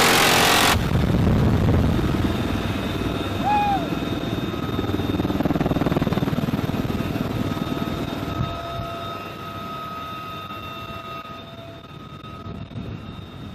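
UH-1Y Venom helicopter running, a low rumble with a steady high turbine whine, fading over the last few seconds. It opens with a loud, dense stream of gunfire that cuts off abruptly under a second in.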